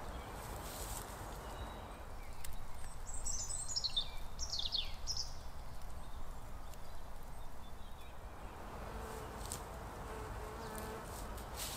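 Open-air ambience in an overgrown garden. A bird sings a quick run of falling high notes a few seconds in, and a flying insect buzzes near the end, with light rustling of steps through tall grass.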